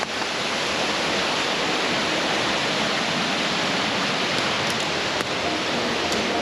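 Waterfall cascading down into a pool: a steady, even sound of falling water.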